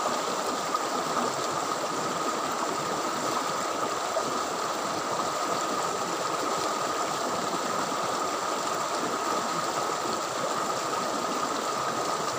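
Shallow rocky stream running fast, a steady rush of water.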